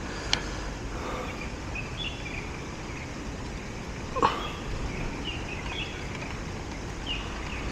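Steady distant traffic hum with scattered bird chirps. Over it come a sharp click soon after the start and a brief rising squeak about four seconds in, from the MC-599 antenna's metal telescoping whips being pulled out by hand.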